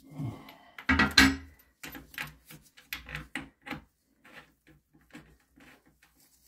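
Metal water-supply hose and its fittings clinking and rattling as the hose's nut is handled and threaded onto its fitting by gloved hands. There is a cluster of louder knocks about a second in, then lighter clicks that taper off.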